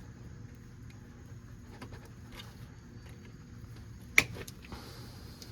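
A few faint metallic clicks and one sharp clink about four seconds in, from a hand tool working the cotter pin on a front wheel spindle nut, over a low steady hum.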